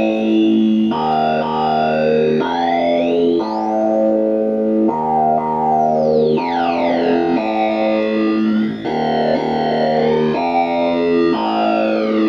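Modular synthesizer patch: a sequenced line of stepped notes, changing about every second, run through a switched-resistor voltage-controlled filter. The filter's audio-rate clock gives the notes a vowel-like formant sound. Higher tones sweep up, then down, as the clock oscillator's frequency is turned, changing the vowel colour.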